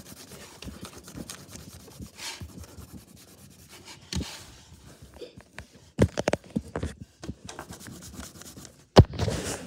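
Brown colour being rubbed and scratched onto lined notebook paper, then from about six seconds in a run of knocks and scrapes as the spiral notebook is moved about on the desk, with one sharp knock about nine seconds in.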